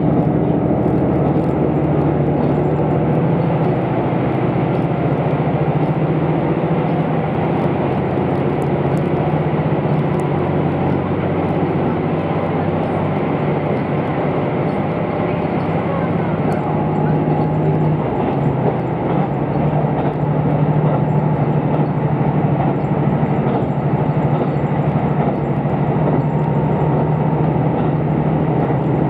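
Passenger cabin of a diesel railcar at speed, the Rapid Mie (a JR Central KiHa 75): steady running noise of wheels on rail with a low, even drone underneath.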